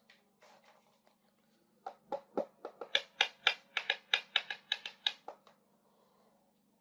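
A quick run of sharp clicks, about five a second, from small hard plastic toy kitchen pieces being handled, swelling and then fading out after a few seconds, over a faint steady low hum.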